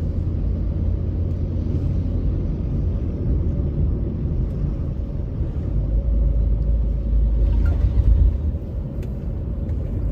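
Low, steady rumble of road and engine noise inside a car moving at speed.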